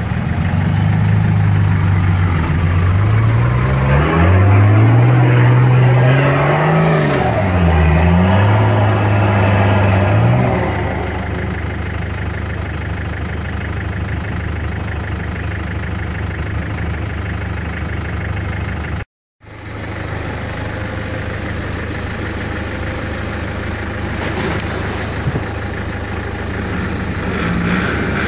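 Four-wheel-drive wagon's engine revving up and down under load as it works through deep sand ruts, for about ten seconds, then running more steadily. The sound drops out completely for a moment a little past halfway.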